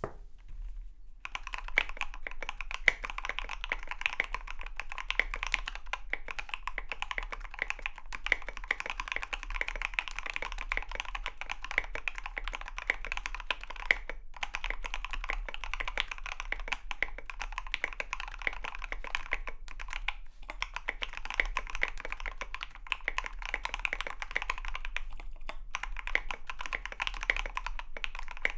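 Fast, continuous typing on a KBD75v2 custom mechanical keyboard with a brass plate, SA keycaps and L7 switches lubed with Krytox 205g0. It is a dense stream of keystroke clacks that starts about a second in, with a couple of short pauses.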